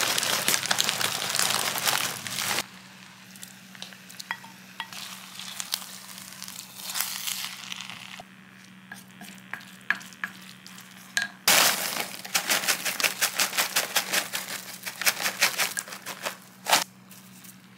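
Kimchi rice sizzling as it fries in a ceramic pot, stirred and scraped with wooden spoons, with scattered clicks and crackles. The sizzle drops off about two and a half seconds in, then comes back loud with rapid crackling past the middle, over a steady low hum.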